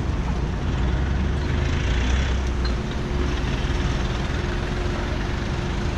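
Street traffic: a large motor vehicle's engine running close by, with a low rumble that is loudest from about half a second to three seconds in and a faint steady hum over it.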